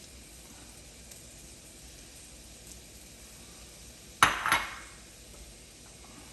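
Celery and green onion cooking quietly in a skillet with a faint steady sizzle, and about four seconds in two sharp, ringing clinks of a utensil against the pan, a fraction of a second apart.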